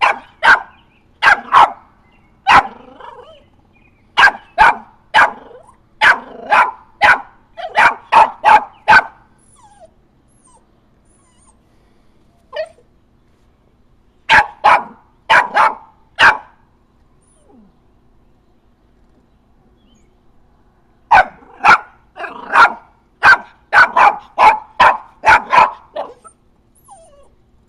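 Four-month-old treeing feist puppy barking at quarry in a wire cage trap: sharp, high barks in three bouts, a long run at first, a short burst about halfway, and a fast run near the end, with pauses between.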